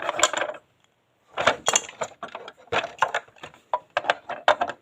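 Small plastic toy parts clicking, knocking and rattling as they are handled and fitted together, with a brief dropout to silence about half a second in.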